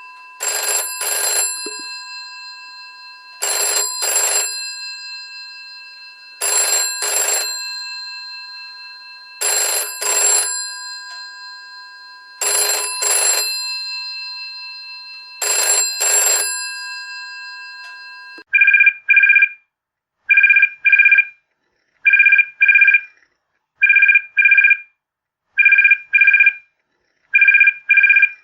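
Telephone ringing: first a bell-type ring in pairs of short rings about every three seconds, its tones hanging on between rings. About 18 seconds in it changes to an electronic ringer, a two-tone trill in short pairs repeating about every two seconds.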